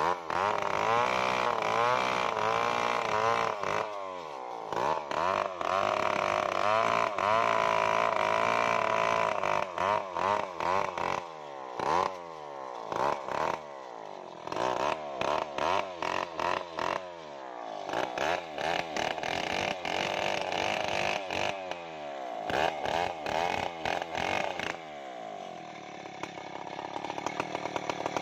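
Stihl 070 two-stroke chainsaw ripping a Kenanga log lengthwise with an Oregon crosscut chain re-filed for ripping. The engine is revved up and down over and over: longer pulls at first, then many short throttle bursts, settling to a steadier, lower note near the end.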